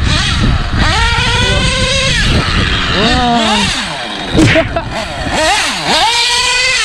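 Nitro-fuelled RC car's small two-stroke glow engine revving up and down under throttle, its high-pitched note rising and falling several times.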